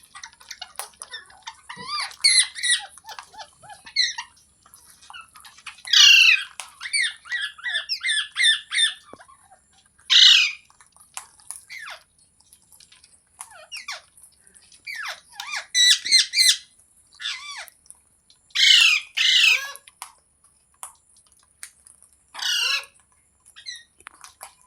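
Green parrot squawking and chattering: loud harsh screeches every few seconds with quicker, softer chattering calls between, over a faint steady high hiss.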